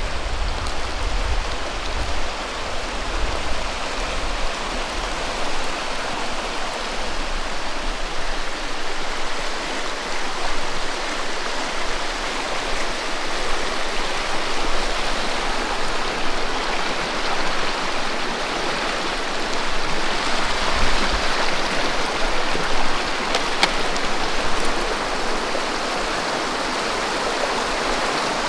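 Shallow mountain creek rushing steadily over rocks.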